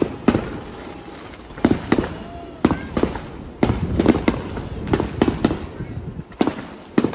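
Fireworks display: aerial shells bursting in rapid clusters, about a dozen sharp bangs over several seconds, each followed by a short echoing decay.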